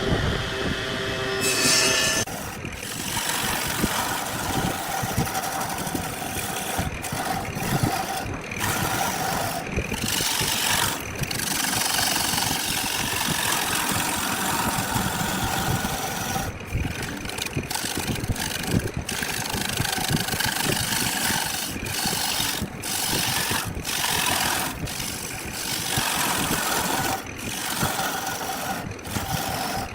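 Wood lathe running while a turning tool cuts the spinning wood, a dense steady grinding noise broken by many brief gaps.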